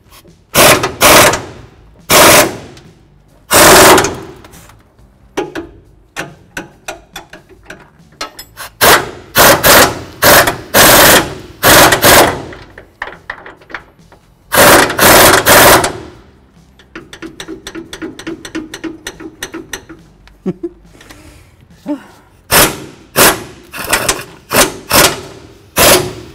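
Pneumatic impact wrench hammering bumper-bracket bolts tight into the truck frame, in many short bursts of rapid rattling with brief pauses between them.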